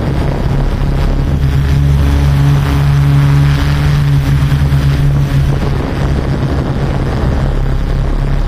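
Yuneec Typhoon Q500 4K quadcopter's motors and propellers running with a steady low drone, mixed with wind noise on the microphone.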